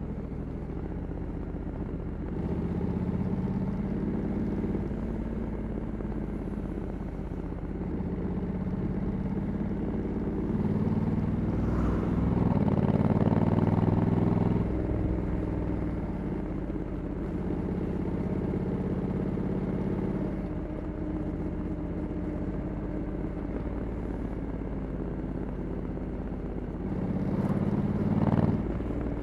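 Honda Africa Twin 1100's parallel-twin engine, with stock exhaust, running under way as the bike is ridden, its revs rising and falling with the throttle. It is loudest a little under halfway through, and the revs rise briefly and then drop off near the end.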